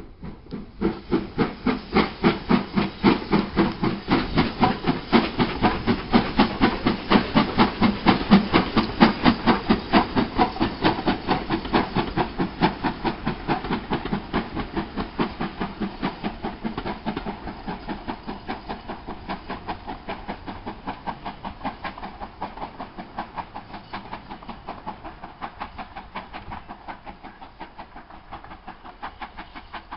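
Steam tank locomotive pulling away with a train of coaches, its exhaust chuffing in a quick, even rhythm. The beats are loudest early on and fade steadily as it draws away.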